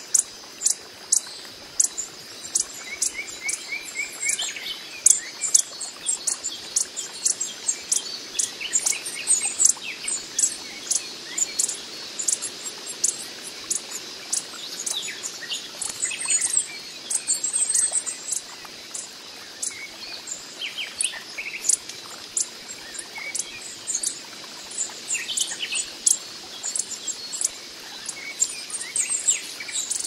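Coppery-headed emerald hummingbird calling: a long series of thin, high, sharp chip notes, irregularly spaced and often several a second, with a few short falling notes among them.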